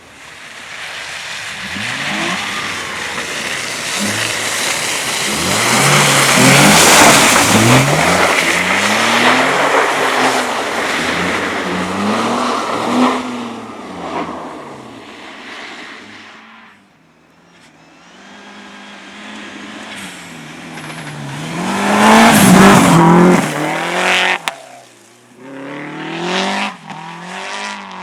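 Cars driven hard on a race track: engines revving up and falling back again and again, with tyre squeal. The first car is loudest for several seconds as it comes close, the sound fades, and another car passes loudly about two-thirds of the way through.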